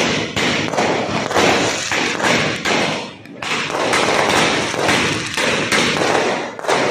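Multi-shot 'sky shot' firework cake firing from the ground: a rapid run of launch thumps, several a second, over a steady hiss of spraying sparks, with a short break about three seconds in.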